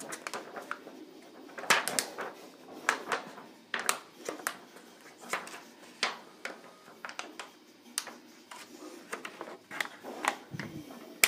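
Clear plastic transparency sheet and a 3D-printed plastic visor frame being handled: irregular sharp clicks and crinkles as the hole-punched sheet is worked onto the frame's pegs.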